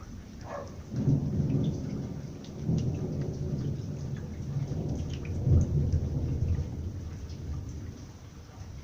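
Thunder rumbling for several seconds in rolling swells, strongest about a second in and again past the middle, then dying away, over light rain dripping.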